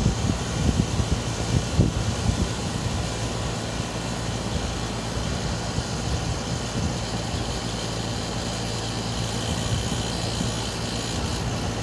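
Air conditioner running with a steady low hum under a broad rushing noise, with a few soft low thumps in the first couple of seconds: the unusual noise the owner is recording the unit to show.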